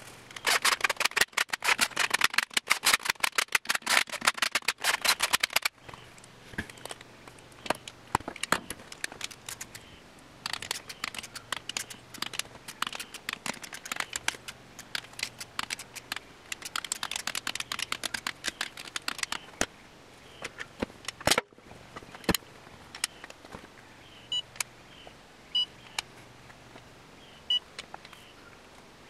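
Ratchet of a digital torque wrench clicking in fast runs as bolts on a VW/Audi 1.8T engine's bottom end are run down and torqued, with scattered single clicks between runs. Short electronic beeps come near the end.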